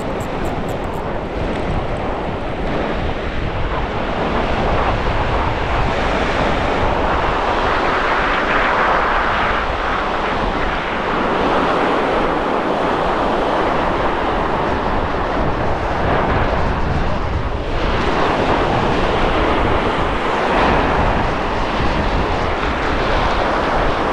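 Sea waves breaking on a sandy beach, a steady rushing surf that swells and eases, mixed with wind blowing on the microphone.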